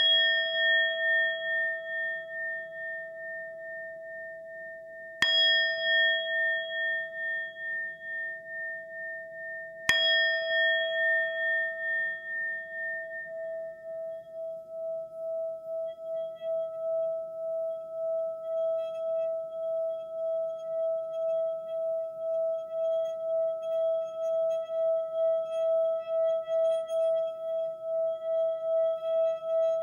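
Singing bowl struck three times, about five seconds apart, each stroke ringing on and slowly fading. From about thirteen seconds in, its tone is held as one steady, gently wavering hum.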